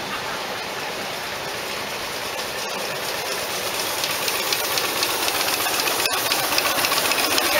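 Ride-on miniature live steam locomotive approaching, its rapid exhaust chuffs over a steady hiss, growing louder from about halfway in.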